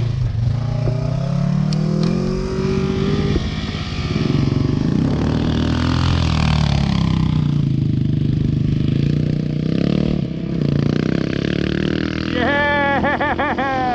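KTM two-stroke dirt bike engine revving while riding, its pitch rising and falling with the throttle. Near the end it revs high with a fast warbling pitch.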